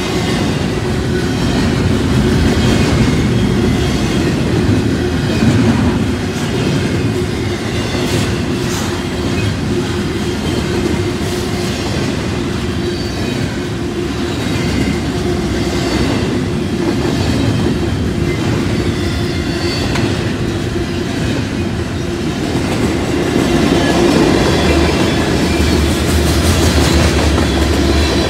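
Freight train cars, double-stack intermodal well cars and then tank cars, rolling past close by: a steady, loud rumble and clatter of steel wheels on rail.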